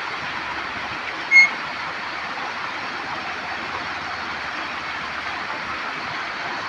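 Muddy Kopili River floodwater rushing fast across a road, a steady noise of churning water. A brief high-pitched tone sounds once, about a second and a half in.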